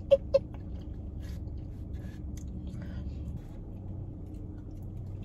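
Close-up mouth sounds of chewing food, faint wet clicks over a steady low hum inside a car. A few short vocal "mm" sounds come right at the start.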